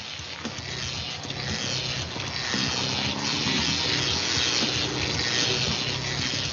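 Opening soundtrack of a lightning-rod explainer video: a rush of noise swelling steadily louder, with low sustained music notes coming in about two and a half seconds in.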